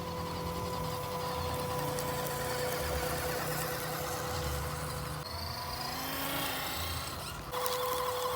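Small electric motor and gearbox of a 1/12-scale MN78 RC car whining at a steady pitch, with uneven rumble underneath. The whine breaks off about five seconds in and returns near the end.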